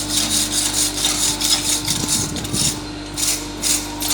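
Steel wire brush scrubbing the hot scarf-welded iron bars in quick back-and-forth strokes, about three a second, cleaning off the scale between welding heats.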